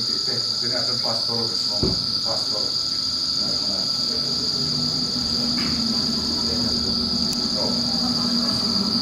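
A steady, high-pitched night chorus of crickets runs without a break. From about halfway through, a low, steady hum builds underneath it.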